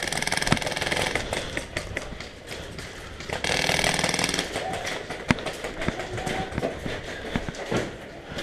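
Airsoft automatic rifle firing full-auto: a rapid rattle of about two seconds, then a second, shorter burst about three and a half seconds in, with scattered knocks between.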